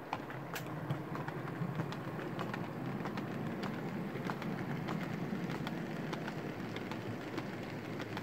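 OO gauge model train rolling close past: a rake of coal hopper wagons behind a diesel locomotive, running along the track with a steady low rumble and many small irregular wheel clicks.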